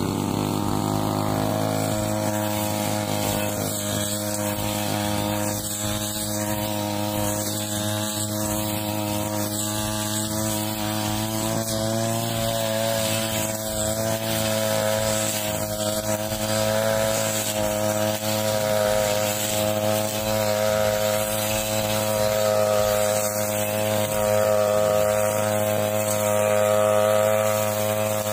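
Petrol brush cutter fitted with a steel blade, running at high revs with a steady pitch as it cuts through dry, dead grass.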